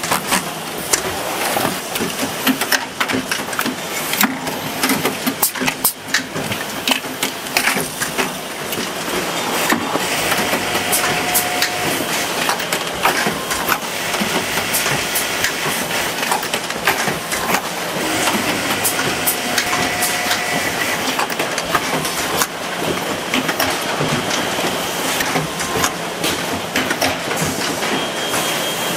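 Automatic towel-hemming and sewing machinery running, a steady mechanical clatter with many rapid clicks and knocks. Two short steady tones sound partway through.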